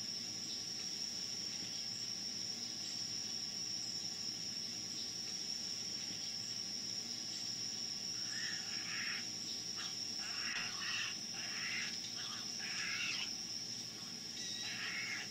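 Outdoor ambience: a steady high-pitched insect drone, with about half a dozen short animal calls from about halfway through.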